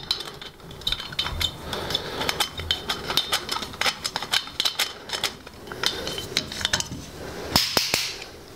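Golf-club torque wrench turning the hosel screw of a TaylorMade R11S driver to reset its loft sleeve: a run of small metallic clicks and ticks, with a few louder clicks near the end.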